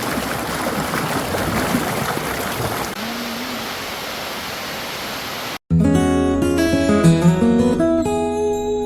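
A steady rushing noise, like running water or wind, cuts out abruptly a little past halfway. After a moment's silence, acoustic guitar music starts, with plucked notes and chords.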